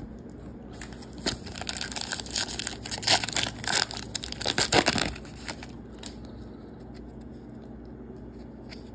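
A Topps Heritage card pack's wrapper being torn open and crinkled, a crackly rustle with many sharp ticks lasting about five seconds. It stops about five and a half seconds in, leaving only faint handling of the cards.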